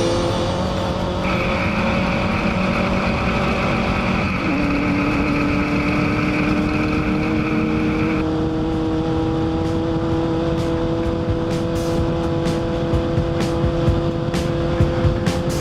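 Off-road race vehicle's engine running under load, its pitch climbing slowly, dropping suddenly about four seconds in as it shifts, then climbing again. A high whine sounds over it for the first half, and sharp ticks come near the end.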